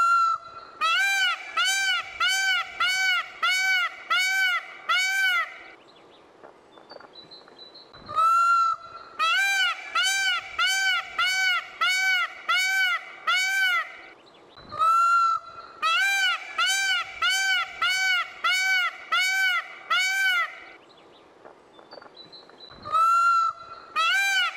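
Male Indian peafowl (peacock) calling in repeated bouts: each bout opens with a longer note, followed by six or seven short, loud, arching honks at about two a second. There are four bouts, with a pause of a couple of seconds between them.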